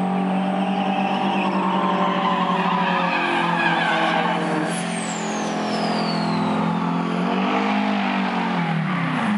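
Kenworth semi trucks' diesel engines running hard down the drag strip, a loud, steady drone that swells and bends in pitch near the end. A high whistle glides down in pitch about halfway through.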